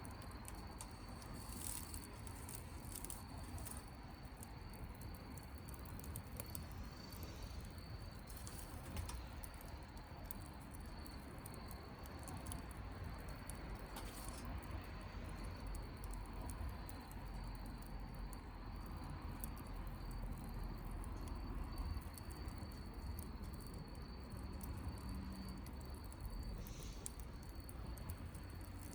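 Wood fire crackling softly, with scattered small pops over a low rumble and a thin steady high tone.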